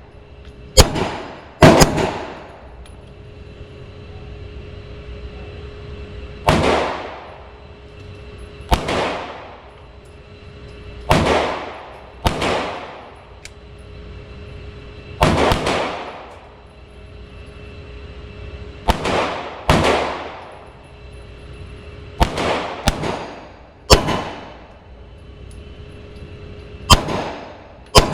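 9 mm pistol shots echoing in a range: about fifteen shots at irregular intervals, some singly and some in quick pairs, each followed by a ringing tail.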